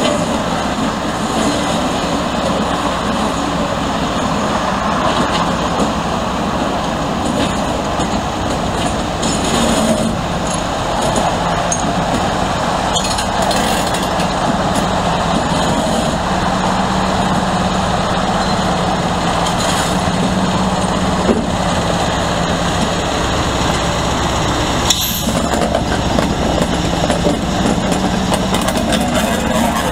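Class 56 diesel locomotive's Ruston-Paxman 16-cylinder engine running loudly as the locomotive draws up and passes at close range, with a steady low drone from about halfway through.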